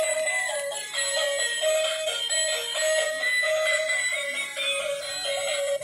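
Battery-operated toy puppy playing its built-in electronic tune, a tinny repeating melody of short notes, which cuts off suddenly near the end.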